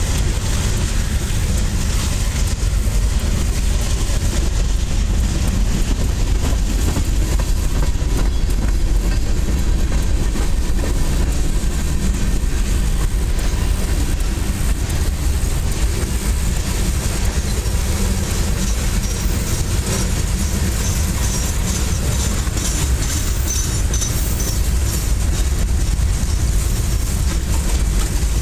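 Freight cars of a CSX local train, covered hoppers and tank cars, rolling past close by: a steady loud rumble of steel wheels on rail, heaviest in the low end, with many small clicks and rattles.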